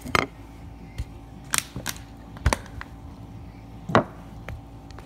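Handling noise: a string of short, sharp knocks and clicks, about seven in five seconds, as tools and parts are picked up and set down on a towel-covered workbench.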